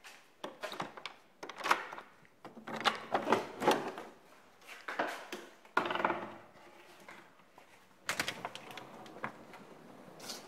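A door being unlatched and pushed open: rattling clicks and knocks from its latch, handle and frame, coming in several bursts with short pauses between them.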